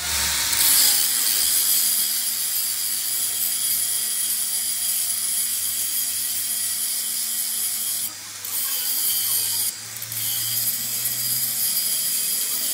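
Handheld angle grinder with an abrasive disc grinding the teeth of a steel gear: a steady high grinding hiss over the motor's whine. The sound drops out briefly twice in the second half, as the disc comes off the metal.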